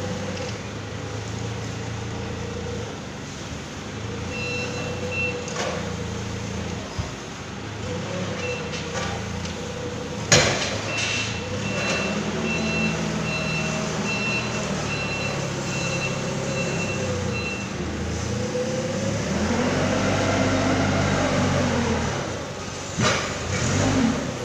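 Forklift engine running, with its reversing beeper sounding a steady series of beeps, about two a second, for several seconds mid-way. A single sharp clunk comes about ten seconds in, and near the end the engine revs up and falls back as the forklift drives off, with two more knocks.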